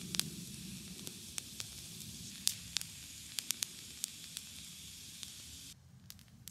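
Bonfire of dry branches and twigs burning, with a steady hiss and frequent sharp crackles and pops. Near the end the hiss drops away, leaving a few scattered crackles.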